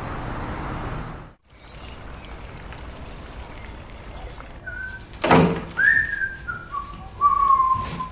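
A person whistling a short tune, a few clear notes stepping down in pitch, starting about five seconds in, with a sharp thump just after the first note and another near the end. Before that, a steady background hiss cuts off about a second and a half in.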